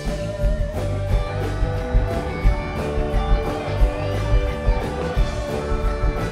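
Live rock band playing: two electric guitars with long held notes over keyboards, bass and a steady drum beat.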